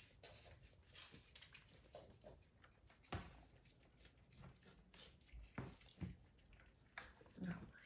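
Faint scuffling of 4.5-week-old kittens wrestling and pouncing on a hard floor, with a few soft knocks from about three seconds in.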